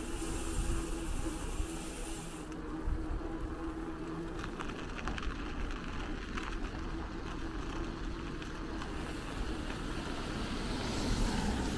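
City street traffic with a low rumble of wind and movement on the microphone. A steady hum fades out about two and a half seconds in, and the noise swells again near the end.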